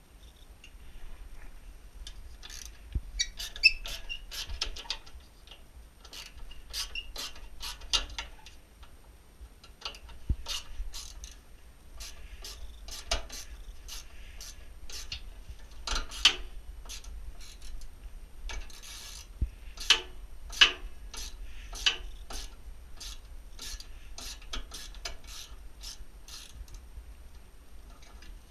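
Metal tool clicking and scraping against steel as bolts are worked loose from a pellet stove's exhaust blower, in irregular clusters of sharp clicks throughout.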